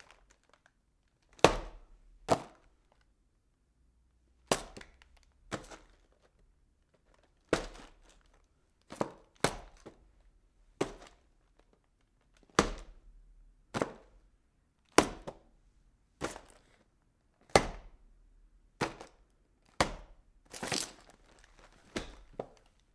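Packing boxes being handled: a series of about eighteen separate knocks and thuds, roughly one a second at uneven spacing, each dying away quickly.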